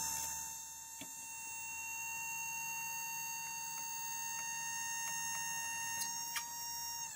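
A machine's steady, high-pitched whine: one unwavering tone that starts abruptly and cuts off suddenly near the end.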